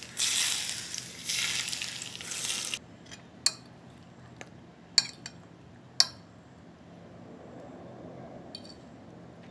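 Smoking-hot oil poured over seasoned potato dumplings sizzles loudly for about three seconds as a tempering, then stops suddenly. After that a fork clinks against the plate about six times as the dumplings are tossed in the oil.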